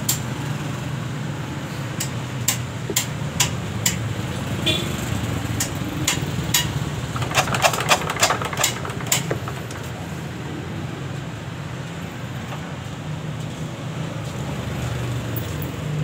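Sharp metallic clicks and knocks as a 186F air-cooled single-cylinder diesel is turned over by hand to test whether its new injection pump delivers fuel. They come about one or two a second, in a quick cluster around the middle, then stop, over a steady low hum.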